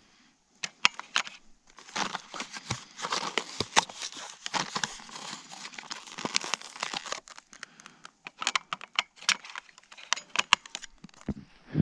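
A plastic blister pack of AA batteries being torn open and crinkled, with sharp clicks and snaps from handling batteries in a trail camera's battery compartment. The clicks cluster about a second in and again over the last few seconds, with the crinkling of the packaging in between.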